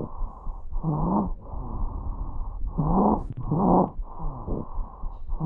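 Lung sounds heard through a stethoscope: a quick run of breaths, several of them carrying a low musical tone that rises and falls. This is a low-pitched wheeze (rhonchus), the sign of narrowed airways.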